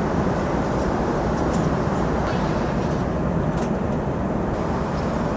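Steady jet airliner cabin noise in flight: an even, low rushing drone with a few faint light clicks.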